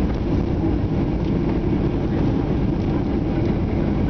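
Steady cabin rumble of a Boeing 737-800 on its landing roll, heard from a seat over the wing: its CFM56 engines and the rolling of the wheels on the runway.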